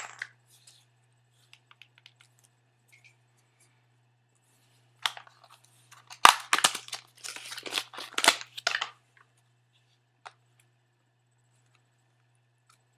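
Packaging being handled: scattered small clicks, then a burst of rustling, crinkling and tearing from about five seconds in that dies away after about nine seconds.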